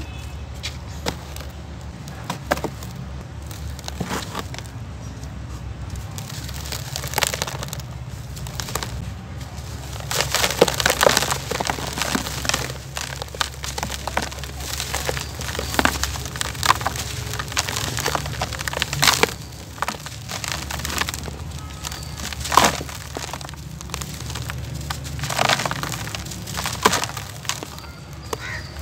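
Dry, bucket-moulded chunks of gritty dirt being crumbled and squeezed by hand: irregular crunching and crackling, with loose grit pouring and pattering into the tub, busiest about a third of the way in.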